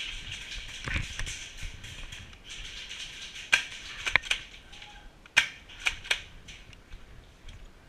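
Airsoft guns firing: about six sharp, separate pops, mostly between three and a half and six seconds in, over a rustling of brush or gear.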